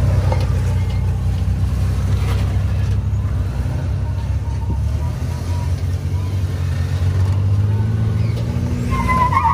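Third-generation Toyota 4Runner engine running at low revs as the truck crawls up over concrete pipe sections, a steady low drone that swells slightly near the end and then drops back.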